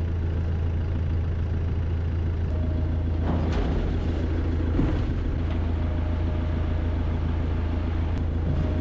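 Diesel engine idling steadily, with a constant low hum and a couple of faint knocks near the middle.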